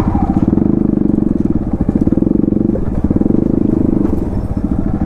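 Motorcycle engine running at low revs as the bike rolls slowly over a rough, stony dirt track; the engine note dips briefly a little under three seconds in, then picks up again.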